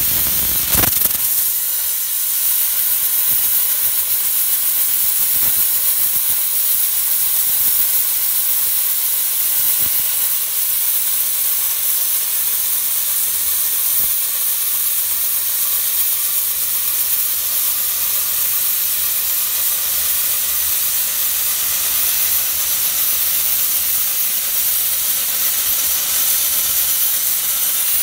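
Plasma cutter torch cutting through steel diamond plate: a loud, steady hiss of the compressed-air plasma arc.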